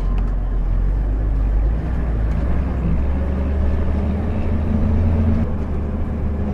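Bus engine running with a low, steady rumble, heard from on board; its note steps up a little about two seconds in.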